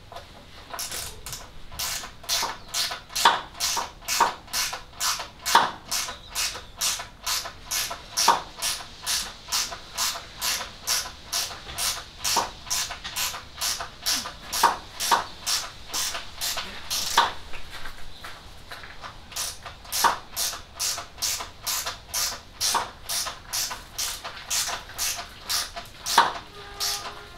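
Socket ratchet worked in steady back-and-forth strokes, giving about two short clicking bursts a second, running a nut down a long bolt thread.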